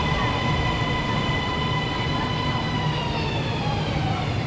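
Electric metro train pulling into the platform: its traction motors give a steady high whine over a low rumble, and the whine falls in pitch about three seconds in as the train brakes to a stop.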